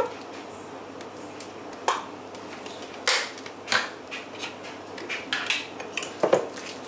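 Spoon clinking and scraping against a glass baking dish, a few separate knocks spread over several seconds, as mayonnaise is stirred into potato salad.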